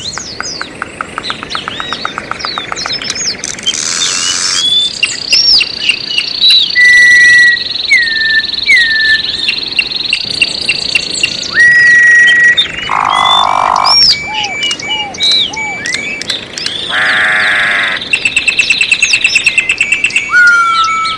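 Several birds singing at once: short whistled notes that slide down, chirps and rapid trills, with a few loud buzzy, croak-like calls mixed in.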